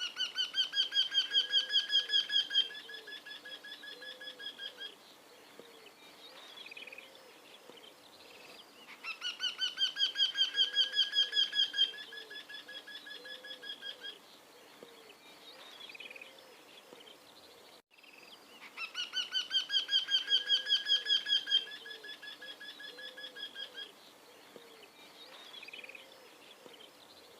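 Bird song: a rapid trill of evenly spaced notes lasting about two and a half seconds, trailing off into softer notes. The same phrase repeats three times, about nine seconds apart.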